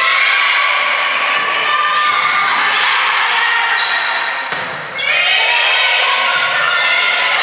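Athletic shoes squeaking on a gym floor during a volleyball rally: many short high squeaks, some sliding upward, in a large echoing gym. There is one sharp smack, the ball being struck, about four and a half seconds in.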